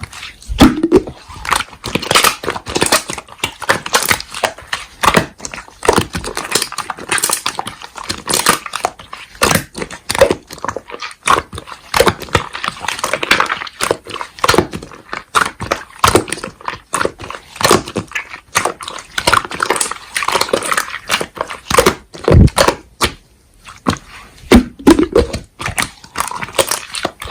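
Slime being squished, pressed and stretched by hand, making a dense run of sticky crackling clicks and pops.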